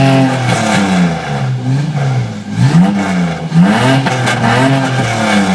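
Ford Ranger's 4.0-litre V6 on a straight-through exhaust with no muffler, revved up and down several times, its pitch rising and falling with each blip of the throttle.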